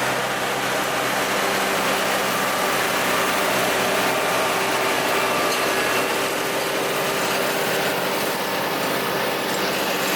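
Remet F1-180 flail mower running behind a tractor: a steady engine hum under the constant rush of the spinning flail rotor.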